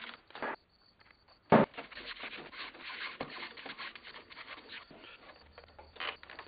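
Hand plane shaving the edge of a western red cedar strip in short, scratchy strokes, after one sharp knock about one and a half seconds in; it is trimming the strip's taper and bevel to fit against its neighbours.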